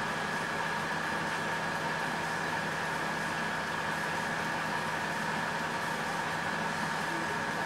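Harvest machinery running steadily: a constant engine drone with a steady high whine, unchanging throughout.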